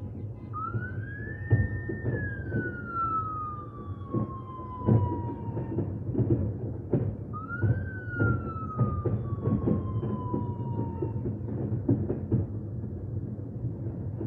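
Fireworks banging and booming in quick succession. Twice, a long whistle rises sharply and then falls slowly over several seconds, the first starting about half a second in and the second about seven seconds in.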